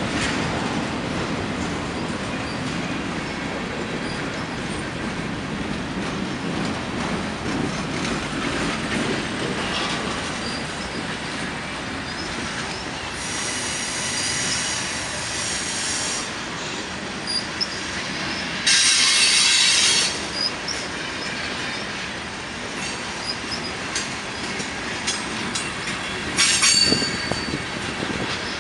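Freight cars of a mixed train (boxcars, covered hoppers, tank cars) rolling past close by: a steady rumble of steel wheels on rail. High-pitched wheel squeal comes in three stretches, the loudest about two-thirds of the way through.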